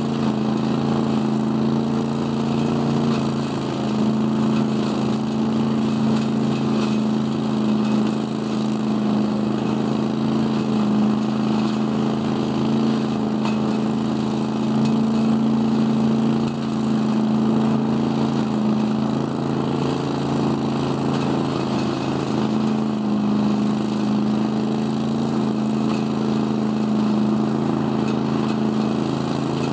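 Scag Giant Vac leaf vacuum, driven by an 18 hp Briggs & Stratton Vanguard V-twin engine, running steadily at working speed while it sucks dry leaves through its 10-inch hose. The rush of air and leaves through the hose and impeller sits over the engine's drone, with small dips in loudness now and then.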